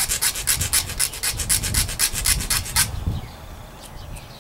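Small file rasping quickly back and forth across the cut end of a 5 mm cable housing, about eight short strokes a second, stopping about three seconds in. The end is being filed flat so it seats well inside its ferrule.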